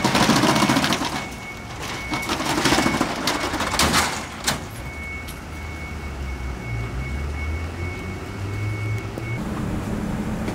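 Metal roll-up shop shutter being pushed up, rattling loudly for about four seconds and stopping with a sharp clank about four and a half seconds in. A low steady rumble follows.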